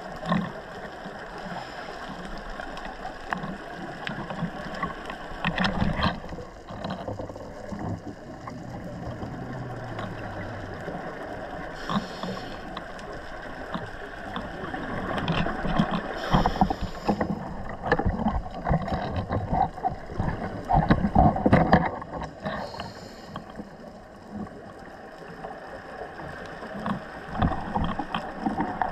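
Underwater noise from a scuba dive: a diver's regulator breathing, with a short hiss a few times about five seconds apart and irregular bubbling in between.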